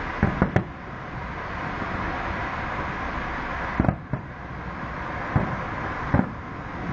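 Aerial firework shells bursting in sharp bangs: three in quick succession at the start, two about four seconds in, then single bangs about five and a half and six seconds in, over a steady rushing background noise.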